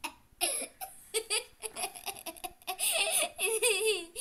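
A young girl and a woman laughing: a run of short giggling bursts, with a higher, wavering laugh near the end.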